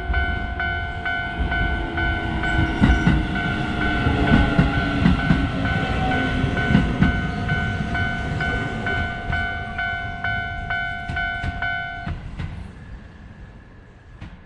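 Japanese level-crossing warning bell ringing its repeated kan-kan in a rapid, even rhythm while a train rumbles over the crossing, its wheels clattering on the rail joints. The bell cuts off abruptly about twelve seconds in, and the train's sound fades away.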